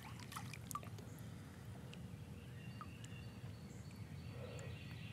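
Quiet open-water ambience: a low steady murmur with a few faint ticks and faint high chirps, likely distant birds or insects.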